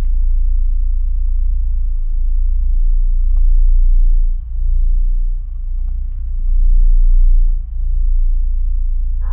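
Deep, low rumbling drone of ambient background music, swelling and easing with two brief dips.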